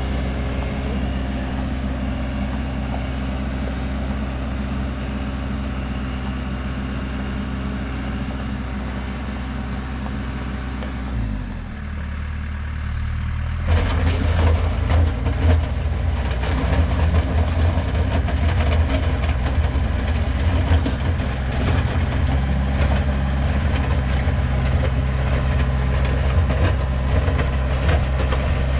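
Heavy equipment engine running steadily. About eleven seconds in the sound drops away briefly, then from about fourteen seconds it comes back louder and rougher, with a clattering rattle over it as the machine works.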